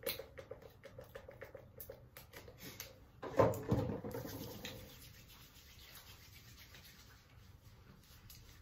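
Small objects being handled: a quick run of small clicks over the first two seconds, then a louder knock with a short ring about three and a half seconds in that fades within a second or so.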